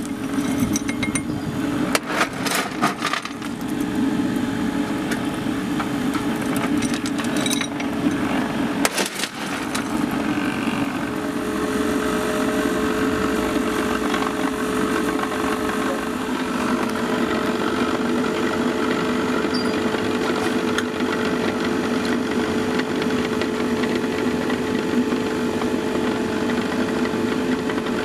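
Electric blower fan set on the chimney of a 7¼-inch gauge model steam locomotive, running with a steady hum while it draws the newly lit fire through the boiler. A few sharp metal clinks and knocks come in the first few seconds and again about nine seconds in.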